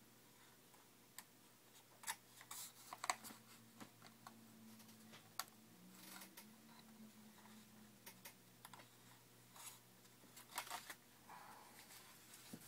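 Scattered small clicks and taps, some in quick little clusters, from hands working the parts of a foam RC model airplane during reassembly, heard faintly over quiet room tone.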